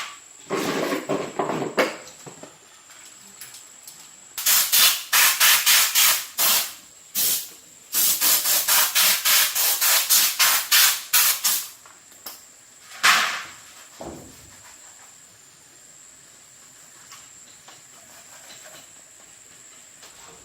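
Repeated short hissing bursts, about three a second, in two runs, then one last burst, over a faint steady high-pitched whine.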